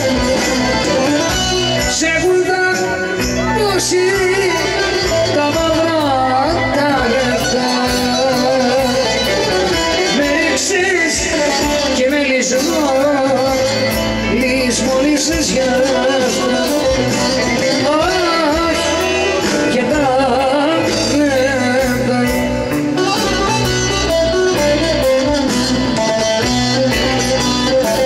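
Live Greek popular band playing loudly: bouzouki, electric guitar, keyboards and drums, with a woman singing a wavering, ornamented melody over it.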